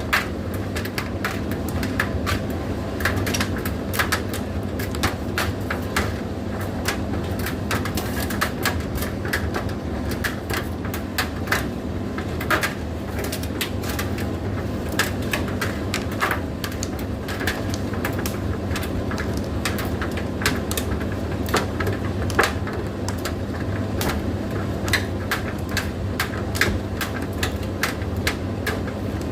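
Indesit IDC8T3 condenser tumble dryer running: a steady low motor-and-drum hum with frequent, irregular light clicks and knocks.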